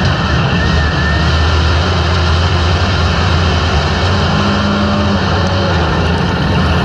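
A field of IMCA modified dirt-track race cars lapping the oval, their engines running together in a steady, unbroken din.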